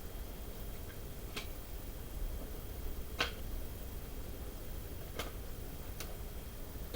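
Four light, sharp clicks and taps from hand work on a truck split-ring rim while the seal ring is fitted, the loudest about three seconds in, over a steady low hum.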